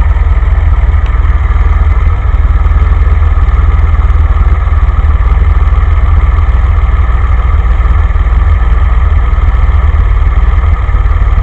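The DeLorean's carbureted PRV V6 is idling roughly: a terrible idle, because the idle outlet screws are opened too far and let too much idle mixture into the venturi bores.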